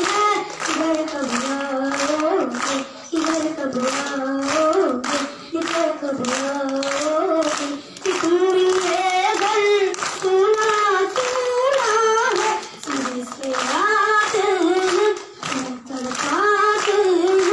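A young boy singing a melody in a high, held voice into a handheld microphone, with evenly spaced hand claps keeping time.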